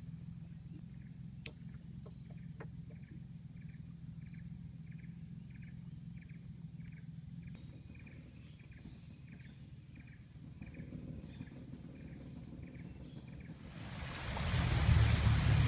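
A boat's motor runs low and steady under a short call repeated about twice a second from the forest, with a thin steady high whine above. Near the end the motor and the rush of water swell sharply louder.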